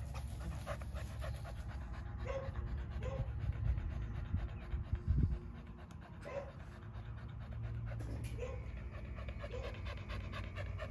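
A dog panting steadily with its mouth open.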